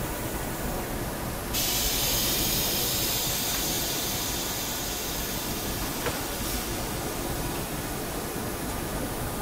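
Metal lathe running with a steady hum. A loud hiss comes in suddenly about a second and a half in and holds.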